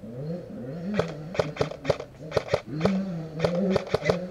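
Airsoft guns firing irregular single shots and short pairs: a dozen or so sharp cracks starting about a second in. Under them a motorcycle engine drones, its pitch slowly rising and falling as dirt bikes ride the nearby motocross track.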